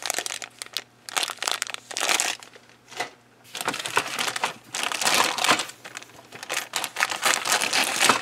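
Thin clear plastic kit bags crinkling as hands handle them, in irregular bursts with a short lull about three seconds in, then denser crinkling as a bag of plastic sprues is picked up and moved.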